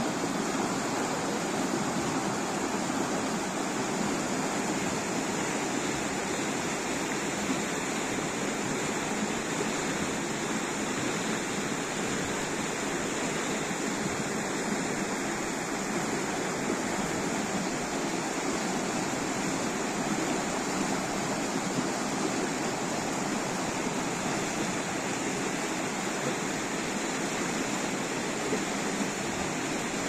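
A fast-flowing river rushing over shallow rapids: a steady, unbroken rush of white water churning over rocks.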